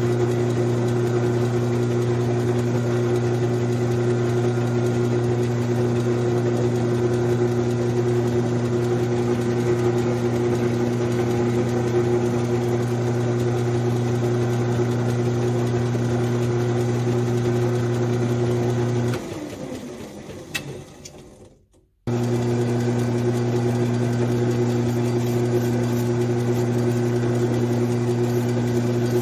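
Grizzly G9972Z metal lathe running, a steady hum of motor and gearing. About 19 seconds in it is switched off and spins down with falling pitch; a few seconds later it is running again at full speed.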